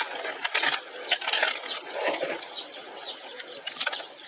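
A hand sloshing and swishing through a plastic bucket of foamy soapy water, with irregular small splashes.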